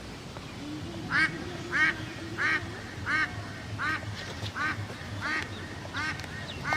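An animal calling over and over in short, arched calls, about one every two-thirds of a second, starting about a second in.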